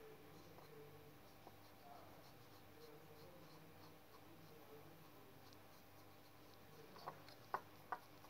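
Faint scraping and swishing of a utensil stirring white foam in a small bowl, over a low steady hum, with three sharp clicks close together near the end.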